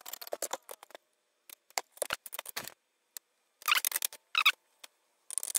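CPU cooler mounting hardware (backplate, spacers and metal mounting bars) being handled and set onto a motherboard: a run of small clicks and taps in four short clusters with quiet gaps between.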